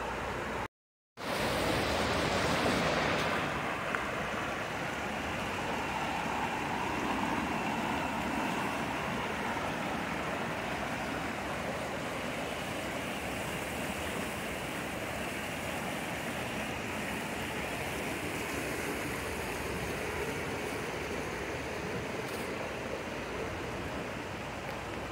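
Shallow mountain creek rushing over rocks and small rapids: a steady, even rush of water. The sound cuts out for about half a second near the start.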